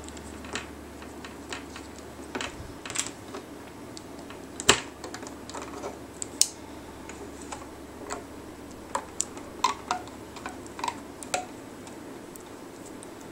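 Scattered small plastic clicks and taps: a plastic crochet hook and rubber loom bands knocking against the clear plastic pegs of a bracelet loom as the bands are hooked and lifted over the pegs, with one sharper snap a little under five seconds in.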